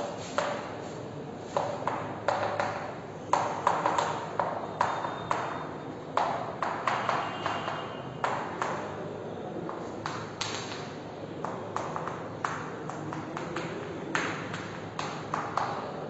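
Chalk writing on a blackboard: irregular clusters of sharp taps and short scratches as each stroke goes down, with brief pauses between groups.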